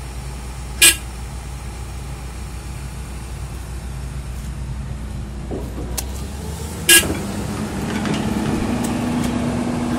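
LiuGong 920D excavator's diesel engine running steadily, with two sharp knocks: one about a second in and one near seven seconds. From about seven seconds the engine note shifts and gets a little louder.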